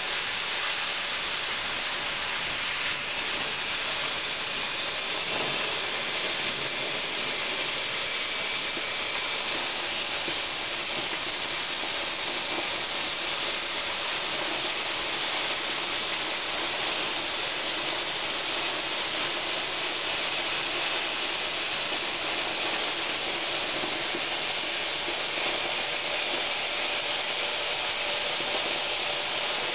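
Oxy-fuel cutting torch on a CNC gas-cutting machine hissing steadily as it works 15 mm steel plate.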